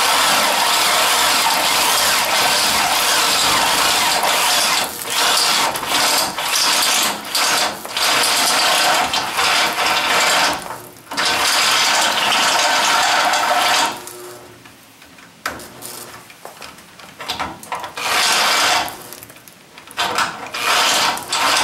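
Hand drill turning a step drill bit through the steel of a truck frame to enlarge a hole. It runs in long pulls with brief stops, goes quieter about two-thirds of the way through, then finishes in a few short bursts.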